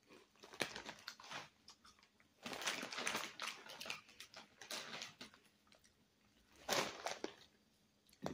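Crinkling of a foil potato chip bag being handled and rummaged for chips, with irregular crunches of wavy potato chips being bitten and chewed.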